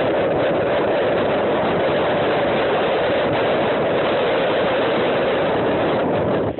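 Hurricane wind and heavy rain: a loud, steady rushing noise with the wind buffeting the microphone.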